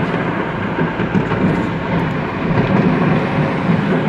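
Loud, steady low rumble heard from inside a moving car: road noise mixed with the rolling booms and faint crackle of a fireworks market exploding and burning.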